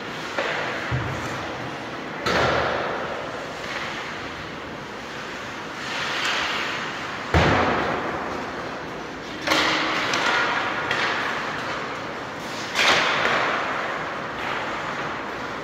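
A series of thuds and bangs, about six in all, each trailing off over a second or two. The loudest comes about halfway through.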